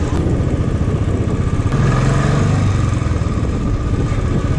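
Royal Enfield Bullet's single-cylinder engine running at low speed under way, heard from the rider's seat, swelling briefly about two seconds in.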